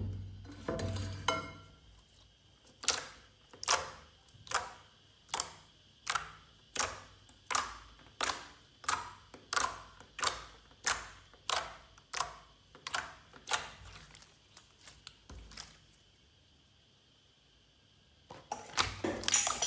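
Glossy slime being pressed and worked by hand, making a regular series of sticky, wet clicking pops, about one every two-thirds of a second. A clatter comes at the start and a quick run of clicks near the end.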